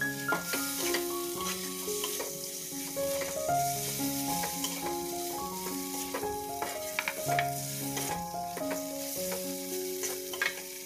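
Shrimp, egg and vegetables sizzling in oil in a metal wok while a metal spatula stirs and scrapes them, with frequent clinks of spatula on pan. Soft background music with held notes plays underneath.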